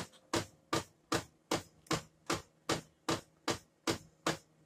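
Brother DCP-7535DW laser printer knocking steadily while running, about two and a half sharp knocks a second. The repairer traces the knocking to a broken gear on the drum unit.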